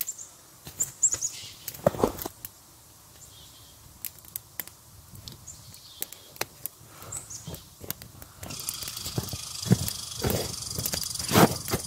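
Small kindling fire of dry twigs crackling and popping with irregular sharp snaps. Near the end come heavier crunching steps in snow.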